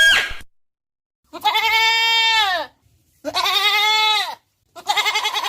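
Goat bleating three times, two long bleats falling in pitch at the end and a shorter wavering one near the end. A short high gliding call sounds just before the bleats begin.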